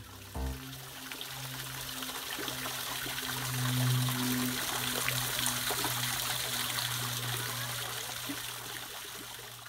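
Shallow water splashing and trickling as a child's boots wade through meltwater street puddles, over a steady low hum; it fades near the end.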